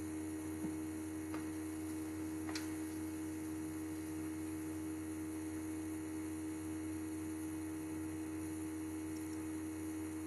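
A steady electrical hum with a constant mid-pitched tone. Three faint clicks of high-heeled shoes stepping on a tile floor come in the first three seconds, fading as the walker moves away.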